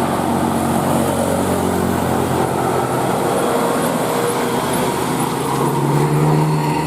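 A large bus's engine running with traffic noise, a steady low hum that grows louder near the end.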